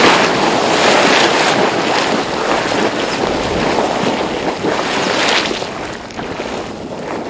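Water churning and bubbling up out of a ground opening burst open by the earthquakes: a loud, steady rushing noise that eases slightly near the end.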